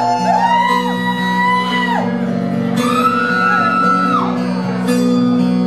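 Acoustic guitar playing a song's intro in a large room, with audience members letting out two long whoops over it.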